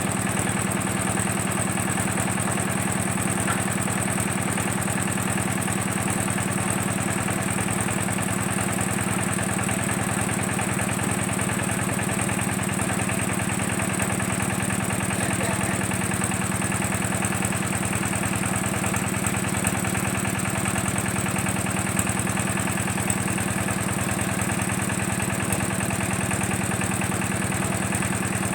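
Engine of a well-drilling machine running steadily at a constant speed, with no revving or change in pitch.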